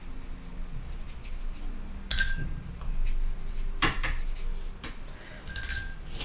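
A paintbrush clinks against a hard paint dish or water pot twice, about three and a half seconds apart, each clink ringing briefly. A duller knock falls between the two.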